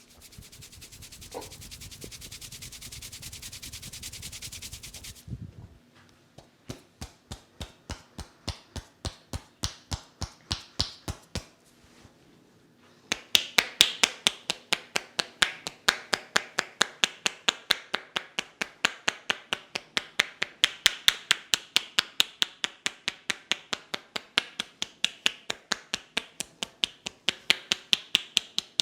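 Head massage by hand: a few seconds of fast rubbing on the hair and scalp, then hands slapping and tapping the head in a steady rhythm, about two strokes a second at first, then louder and quicker, about three a second, from about halfway on.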